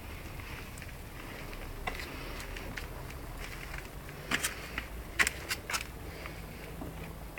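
A few sharp plastic clicks and knocks from a rain barrel's plastic tap as a small child twists and handles it: a single click about two seconds in, then a quick cluster of five or six more between about four and six seconds, over a steady faint outdoor background.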